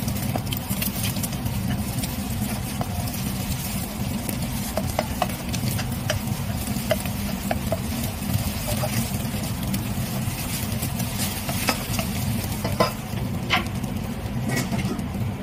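Scrambled eggs sizzling in oil in a wok while a wooden spatula stirs and scrapes them, with many short clicks of the spatula against the pan, a few louder ones near the end. A steady low hum runs underneath.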